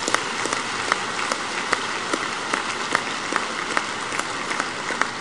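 Large audience applauding, a steady mass of hand claps.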